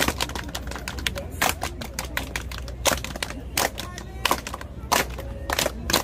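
Step team stepping: sharp hand claps and foot stomps on asphalt in a quick, uneven rhythm, with a short shout a little past the middle.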